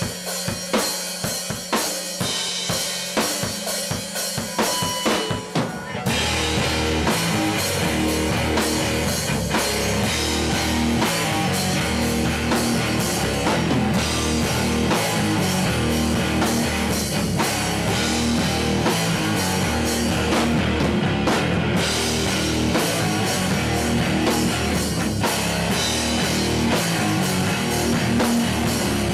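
Live rock band: a drum kit plays alone with sharp hits at first, and about six seconds in electric guitar and bass come in with the drums and the full band plays on loudly.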